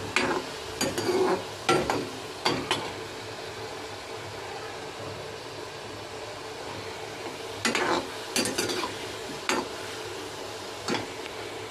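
Bread gulab jamun balls deep-frying in hot oil in a metal kadhai: a steady sizzle, with a few short scrapes and clinks of a steel ladle against the pan.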